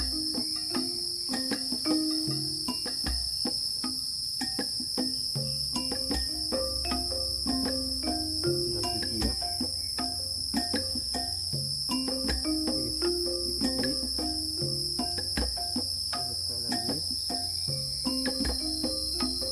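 A steady, high-pitched chorus of crickets and other insects, with soft background music of repeating melodic notes over a low bass line underneath it and scattered light clicks.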